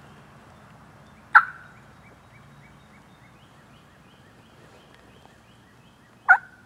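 An eastern wild turkey gobbler gobbling twice, loud and close, about five seconds apart.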